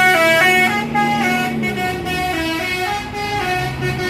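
Bus basuri musical horn playing a melody, its tones stepping quickly from note to note, with a lower held tone underneath that slides down and fades about two seconds in.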